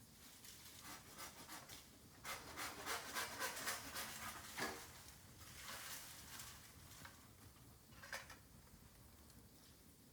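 Bamboo bonfire crackling, with a dense run of sharp crackles and pops for a few seconds and one lone crack near the end.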